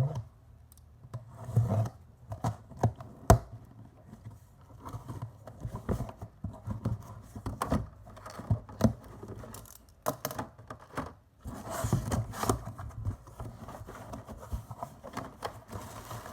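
Packaging being handled and opened by hand: irregular scraping, rustling and clicking, with one sharp knock about three seconds in.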